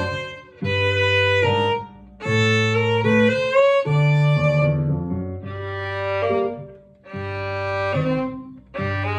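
Violin bowing a simple chromatic tune in short phrases with brief breaks between them, the notes moving by small steps, over a low bass accompaniment.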